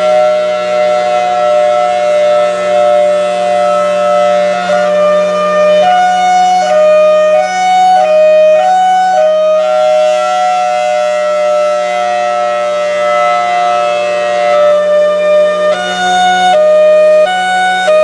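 Federal Signal Thunderbolt 1003 rotating outdoor warning siren sounding. It holds one steady tone in places, and in other stretches it switches back and forth between a higher and a lower pitch about every half second in a hi-lo pattern. The sound swells and fades as the horn turns, over a steady low hum.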